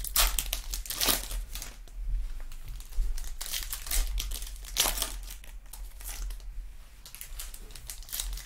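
A foil trading-card pack wrapper crinkling as it is torn and crumpled in the hands, in short bursts every second or two.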